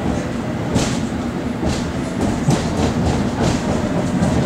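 London Underground S8 Stock train running and pulling away, heard from inside the carriage: a steady low rumble with a sharp click from the wheels about once a second.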